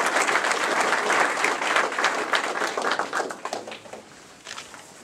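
Audience applauding. The clapping thins out and dies away about three to four seconds in, leaving a few last scattered claps.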